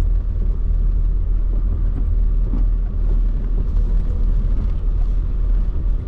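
Vehicle on the move: a steady low rumble of engine and road noise.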